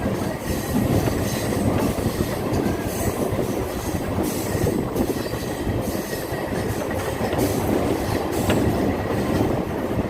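Train running on the rails, a steady loud rumble of wheels and cars with faint clicks scattered through it.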